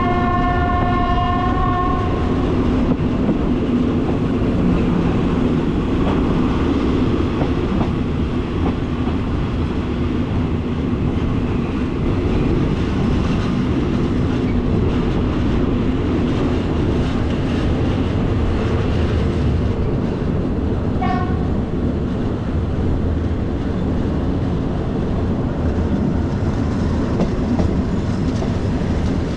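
Passenger train running steadily on the rails with a continuous rumble. Its horn sounds for about two seconds at the start and gives a short toot about two-thirds of the way through.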